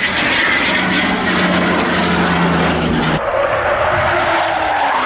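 Jet engine noise of a Eurofighter Typhoon fighter flying past: a loud, steady rush that changes about three seconds in, with a tone rising near the end.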